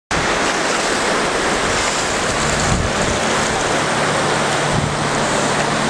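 Steady rushing of river water, an even hiss with no distinct splashes.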